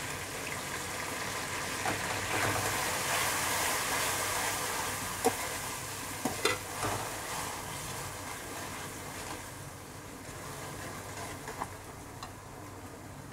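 Ginger-garlic paste sizzling in hot oil among browned onions in a steel pot, stirred with a steel ladle that clicks against the pot a few times around the middle. The sizzle dies down toward the end.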